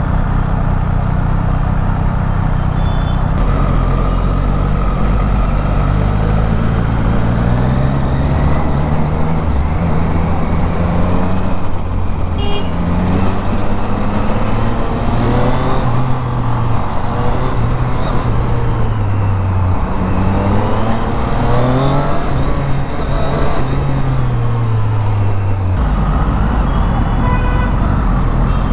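Triumph Street Triple RS's three-cylinder engine pulling through city traffic, its pitch rising and falling again and again as the throttle is opened and closed.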